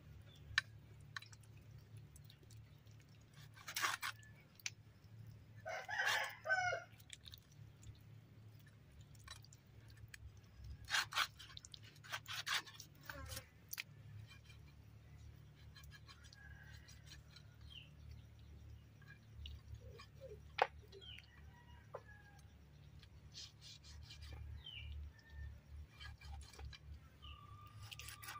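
Cleaver and knife cutting and scraping pig-head meat and bone, with a few sharp knocks. A rooster crows once about six seconds in, and short faint chicken calls follow later.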